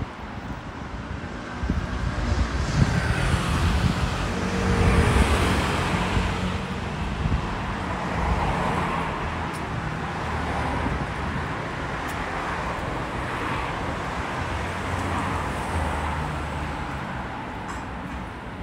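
Street traffic: motor vehicle engine and tyre noise, swelling as a car passes close by about five seconds in, then a steady lower traffic hum.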